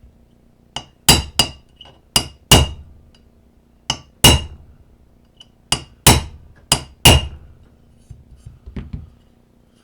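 A hammer striking a punch to drive the roll pin of an AR-15 trigger guard into the lower receiver: about a dozen sharp, ringing metal strikes, mostly in pairs of a light tap then a harder blow, with a few lighter taps near the end.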